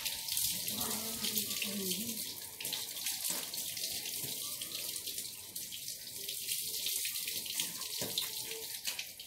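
Steady rush of running water from a garden hose, with a car being washed.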